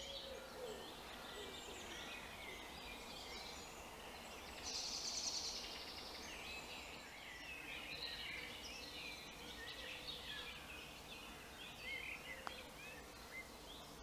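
Woodland birdsong in spring: several small birds singing at once with short chirps and whistles, and a loud rapid trill about five seconds in.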